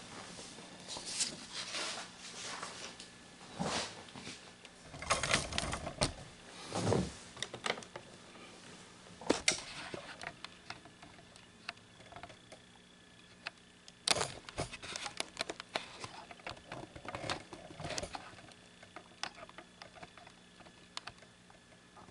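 Scattered clicks, taps and short rustles in irregular bursts with pauses between, over a faint steady hum.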